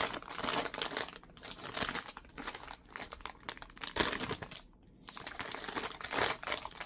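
Blind-box packaging being torn open and crinkled by hand: irregular rustling and crackling, with a sharp snap about four seconds in and a brief lull just after.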